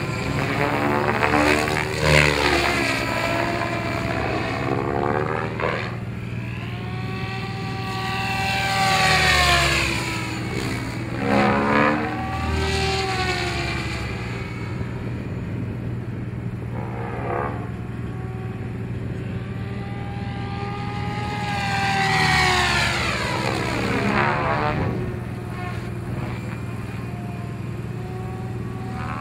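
Radio-controlled helicopter flying overhead: its motor and rotor whine rises and falls in pitch several times as it passes back and forth and maneuvers, over a steady low hum.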